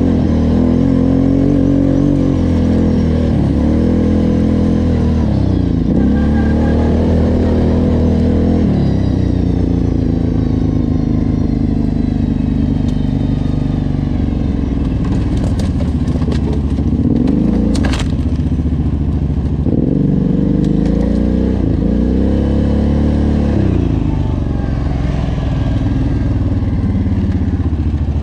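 Off-road vehicle engine running under changing throttle, its pitch climbing and dropping again and again as the rider accelerates and backs off. A single sharp knock comes about eighteen seconds in.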